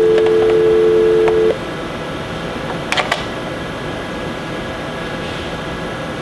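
Cisco 7961 IP phone giving a dial tone of two steady tones that cuts off about a second and a half in, followed by two sharp clicks about three seconds in, as the repaired hook switch is tested. The tone coming and going shows the hook switch working.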